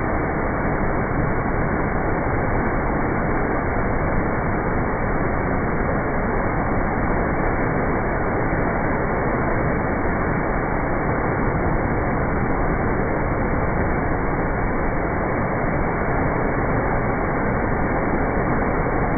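Waterfall with water falling in a steady, even rush that does not change.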